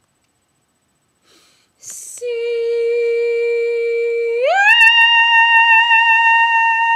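Dog howling in long held notes: one steady tone, then about halfway through a slide up to a higher note that is held.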